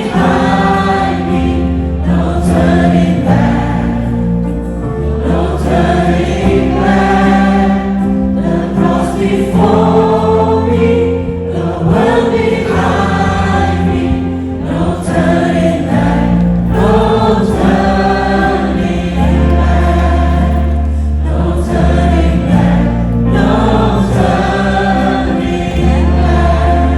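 A choir singing a gospel worship song over a band with sustained bass notes, cutting off abruptly at the end.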